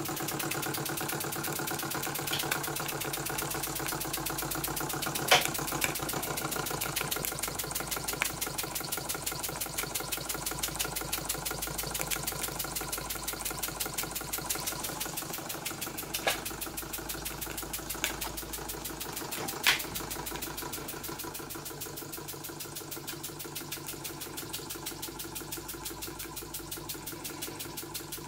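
KMV vertical toy steam engine running steadily on live steam under load, driving a belt-driven fan, with a rapid, even beat. Several sharp clicks stand out over it.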